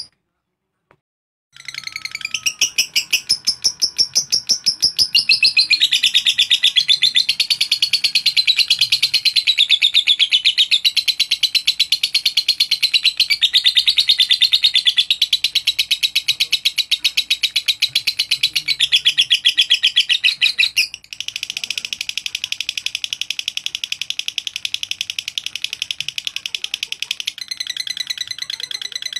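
Lovebird chattering in a long, unbroken run of rapid high-pitched notes, the continuous 'ngekek' chatter, starting about a second and a half in. The chatter breaks off briefly about three-quarters of the way through and resumes.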